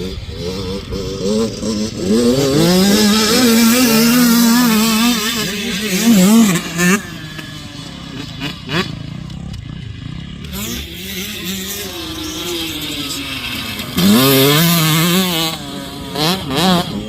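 Motocross dirt bike engines revving up and down through the gears as riders go round the track. The engine sound is loudest as a bike passes close, from about two to seven seconds in and again near the end, and fainter while the bikes are further away.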